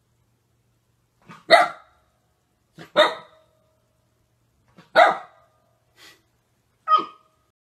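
Golden retriever puppy barking: four sharp, high barks about two seconds apart, each with a short soft huff just before it.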